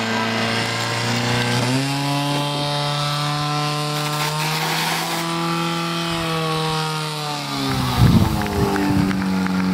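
Engine of a portable fire pump running steadily, its pitch rising about two seconds in, held high for several seconds, then falling back near the end, with a few loud knocks as it drops.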